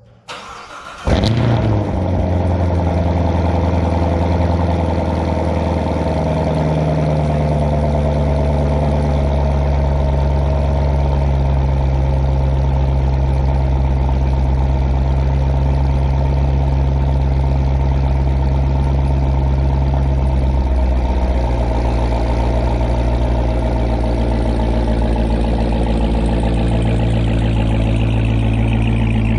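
Chevrolet Corvette C7 ZR1's supercharged 6.2-litre LT5 V8 cold-starting with its exhaust in Track mode: a brief crank, the engine catching with a loud flare about a second in, then a steady, loud fast cold idle through the quad tailpipes that shifts slightly in pitch a couple of times as it settles.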